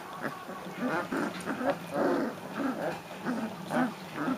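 Leonberger puppies calling over one another: many short, overlapping whines and grunts, about two a second.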